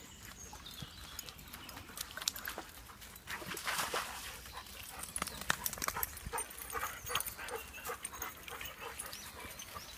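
Dogs on the move: paws scuffing and clicking on a dirt path, busier from about a third of the way in, with a few faint short whimpers in the second half.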